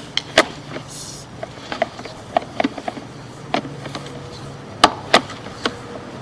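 Irregular sharp clicks and knocks with some rubbing, about a dozen in all, as a sewer inspection camera's push cable is fed down the drain line.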